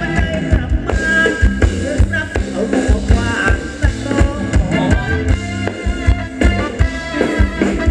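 Live Thai ramwong dance band music, with a steady beat of drum hits under a melody line.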